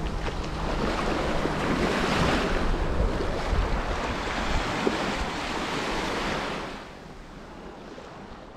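Small sea waves washing onto the sand at the water's edge, the surf noise swelling and easing in slow surges, with wind buffeting the microphone. The sound drops sharply in level near the end.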